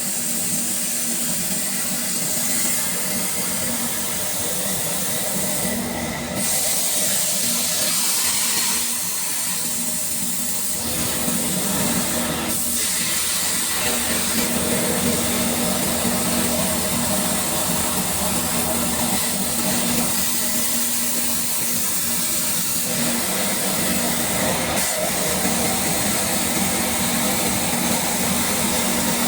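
Plasma cutter running on a compressor shell opening machine, a loud continuous hiss of the cutting arc and its air jet as it cuts open a refrigerator compressor's steel shell, over a steady low hum. The hiss shifts in level a couple of times, about 6 and 12 seconds in.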